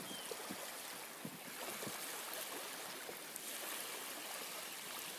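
Small waves lapping and trickling at a pebbly beach's edge, a steady gentle wash of water.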